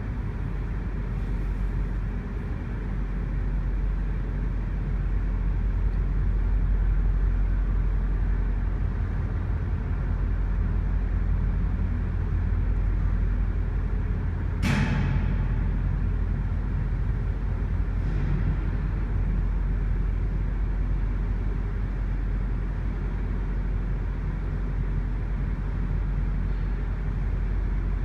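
GO Transit diesel commuter train running at the station platform, a steady low engine rumble. About halfway through comes a sudden sharp burst of noise that fades within a second, followed a few seconds later by a fainter one.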